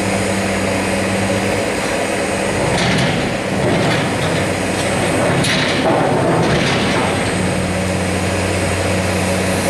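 Heavy diesel engine of a CAT hydraulic excavator running steadily as it sets a large rock boulder into a dump truck's steel bed. Midway there is a stretch of scraping and knocking as the rock slides and settles in the bed.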